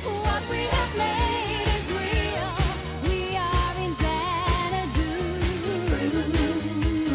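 Background pop song with a singing voice over a steady drum beat and bass.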